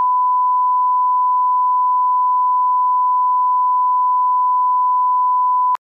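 A 1 kHz bars-and-tone reference tone: one steady pure beep held unbroken, cutting off suddenly near the end.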